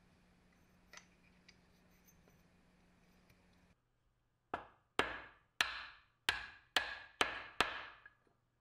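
Seven sharp hammer blows on a flat steel bar, about half a second apart, each ringing briefly: the bar drives a metal ring into the front housing of a Milwaukee M18 impact driver. A small click sounds about a second in.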